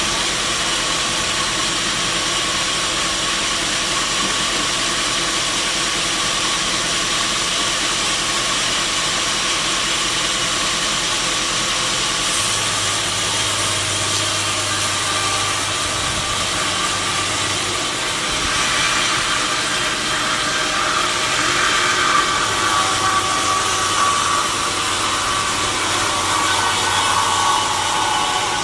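Sawmill saw machinery running with a steady mechanical drone and hiss. From about two-thirds of the way in, a higher whine joins and the sound gets a little louder.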